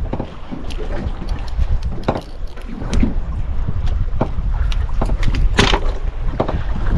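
Steady low rumble of wind and sea on an open fishing boat, with scattered sharp clicks and knocks; the strongest knock comes a little over five seconds in.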